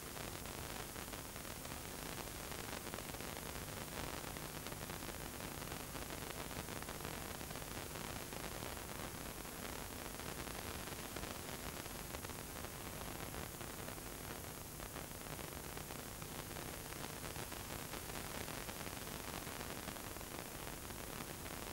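VHS tape playback noise: a steady hiss with fine crackle, and a faint low hum underneath.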